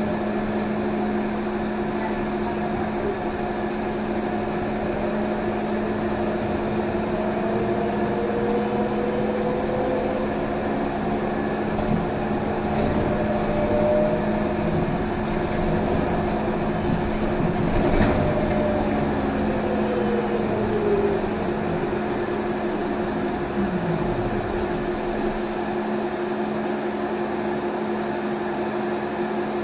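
Inside a moving trolleybus: a steady electrical hum with two held tones, while the electric traction motor whines, rising and falling in pitch as the trolleybus speeds up and slows. A single knock comes about two-thirds of the way through, and the whine winds down near the end.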